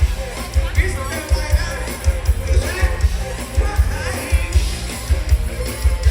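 Live band music with singing over a loud, steady kick-drum beat.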